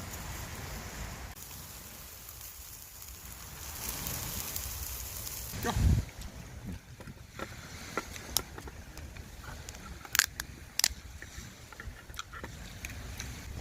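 Wind buffeting the microphone, with a heavy thump about six seconds in and a few sharp clicks or taps afterwards.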